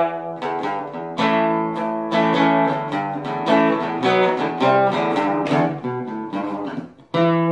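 Guitar music: a run of plucked notes, a brief break near the end, then a chord struck that rings on.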